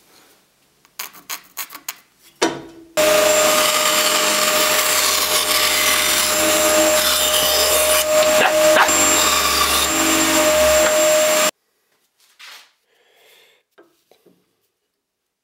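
Bandsaw running and cutting through a wooden block: a loud, steady cutting hiss over a constant motor tone, which stops abruptly. Before it starts, a few light knocks of the wood being handled.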